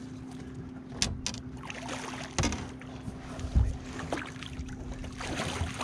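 Knocks and bumps on a small fishing boat and rustling water as a hooked lake trout is brought alongside and netted, over a steady low hum. There are several sharp thumps, the loudest about two thirds of the way through.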